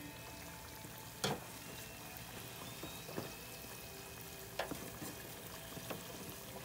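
Oil sizzling steadily as stuffed pastries deep-fry in a stainless steel fryer, with a few sharp clicks of wooden chopsticks knocking against the pastries and the fryer, the loudest about a second in.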